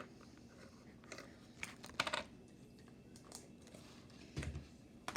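Scattered light clicks and taps of small objects being handled, with a soft low thump about four seconds in.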